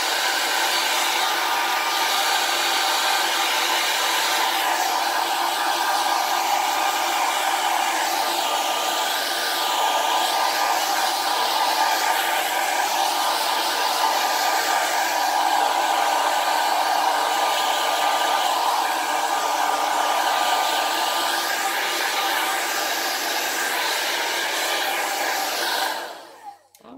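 Handheld hair dryer blowing steadily, drying freshly painted acrylic on a wooden cut-out. It is switched off near the end, and the blowing dies away within about a second.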